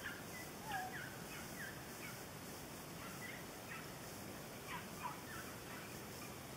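A pack of boar-hunting hounds in full cry, heard faintly: many short yelps and bays overlapping.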